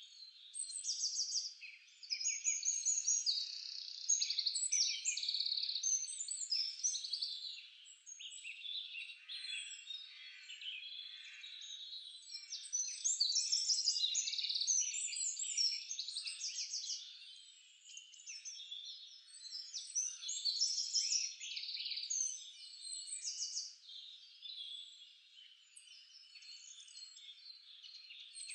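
Dense chorus of small birds chirping and trilling, many calls overlapping, with quick high chirps sweeping downward throughout.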